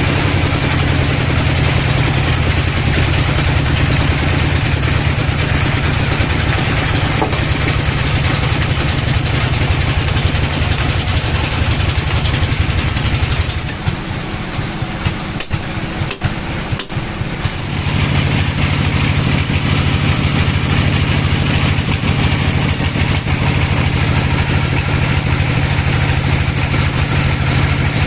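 An engine running steadily. For a few seconds around the middle it drops quieter, with a few knocks, then returns to the same steady running.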